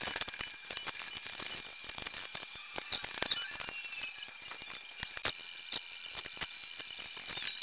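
A new A/C condenser being set into place and its refrigerant line fittings handled: irregular light metallic clicks, taps and rattles, a few louder knocks among them, over a faint steady high whine.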